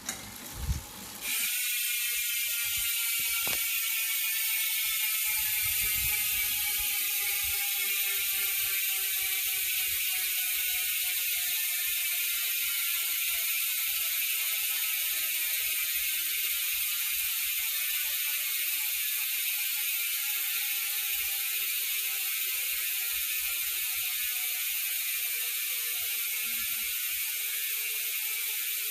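ARC MT009 bicycle rear freehub buzzing as the spun wheel freewheels: a steady, high, rapid ratcheting of the pawls that starts about a second in and slowly drops in pitch as the wheel coasts down.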